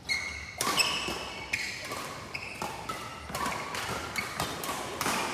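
Badminton rally: a quick, irregular run of sharp racket hits on the shuttlecock, mixed with players' shoes squeaking on the court floor, echoing in a sports hall.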